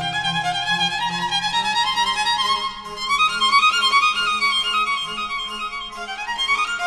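Background music led by a violin playing quick runs of notes that climb and fall, over low held notes.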